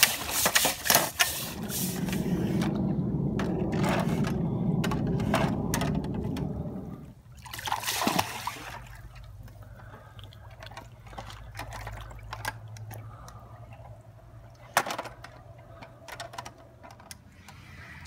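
Pool brush on a long pole sweeping through the water, splashing and sloshing as it scrubs algae off the pool walls. The water noise is heaviest for the first seven seconds, then quieter with occasional single splashes.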